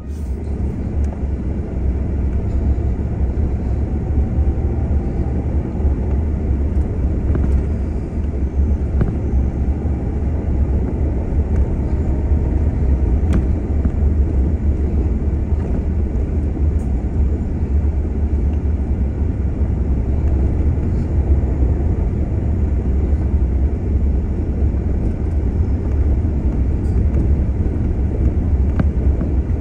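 Vehicle driving on a gravel road: a steady deep rumble of engine and tyres on gravel, with a few faint scattered clicks.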